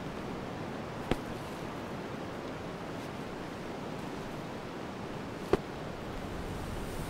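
Steady wind ambience of a snowy winter forest, with two short sharp snaps, one about a second in and another about five and a half seconds in.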